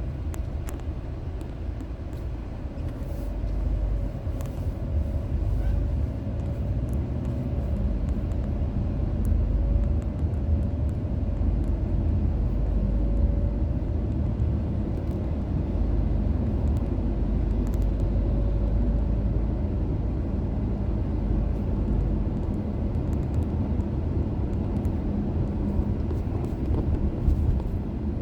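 Steady low road and engine rumble of a moving car, heard from inside the cabin, with a faint wavering whine above it.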